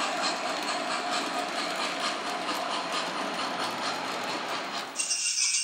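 O gauge model train rolling along its track: a steady rumble of motor and wheels with a rapid clicking over the rail joints. Near the end it gives way abruptly to jingling bells.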